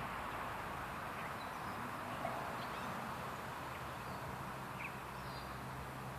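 Steady outdoor background hiss with a few faint, brief bird chirps; a low hum comes in partway through. The feeding dragonfly itself makes no audible sound.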